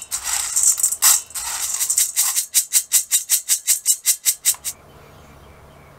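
Roasted coffee beans rattling in a stainless steel colander as gloved hands stir them, then shaken rapidly, about five shakes a second, to cool them; the shaking stops about three-quarters of the way through.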